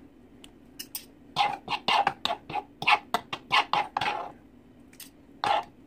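Metal fork scraping and raking shredded chicken across a plastic cutting board: a quick run of short scratchy strokes, about three a second, then one more stroke near the end.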